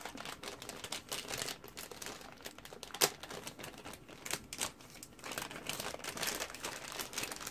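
Plastic bag crinkling and rustling as multimeter test leads are handled and pulled out of their packaging, with one sharp click about three seconds in.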